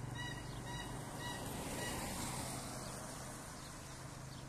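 Road traffic on wet asphalt: a low engine hum and tyre hiss that swells about two seconds in and then fades. A quick run of short repeated chirps stops after about a second and a half.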